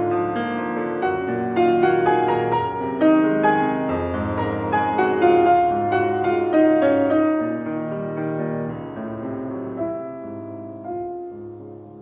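Piano music: a steady flow of notes and chords over low bass notes, growing quieter over the last few seconds.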